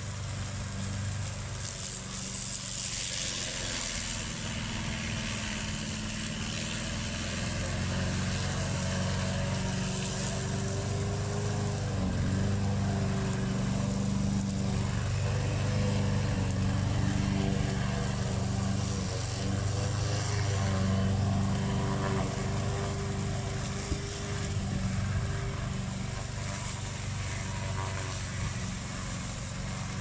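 Black Shark 800 remote-control tracked slope mower running steadily and mowing weeds, with its 764 cc two-cylinder gasoline engine at a steady working speed. It grows louder toward the middle as the mower comes closer and eases off near the end as it moves away.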